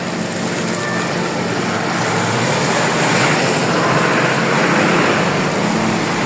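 Steady hiss of rain with a low hum under it, swelling louder about three to five seconds in.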